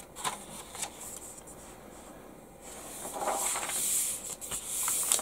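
Paper instruction booklet being handled: a few light taps and paper rustles, then a louder crinkling rustle from about three seconds in as the pages are folded open and pressed flat by hand.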